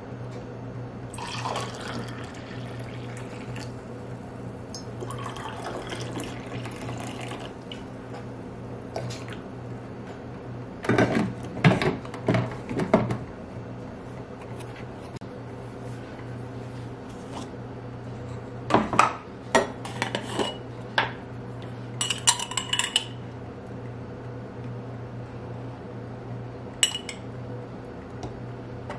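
Coffee poured from a carafe into china teacups, followed by several sharp clinks of metal on china and glass. Near the end a metal spoon scrapes and taps inside a small glass jar. A steady low hum runs underneath.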